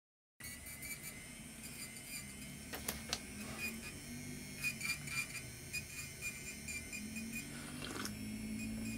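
Electric nail drill (e-file) running with a steady high whine and a few light clicks, as it files gel polish off a nail.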